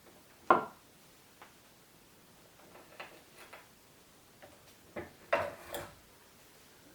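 Scattered light knocks and clicks, as of hard objects being handled: a sharp one about half a second in, a few faint ones, and a cluster of several near the end.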